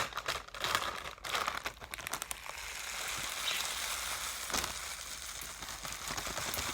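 Seeds and millet being poured into a bowl layered with tissue paper: a few separate rustles and clicks at first, then a steady, even hiss of small seeds falling from about two and a half seconds in.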